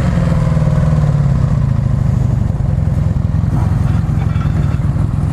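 Motorcycle engine running as the bike pulls away and rides on, a steady low engine note with no break.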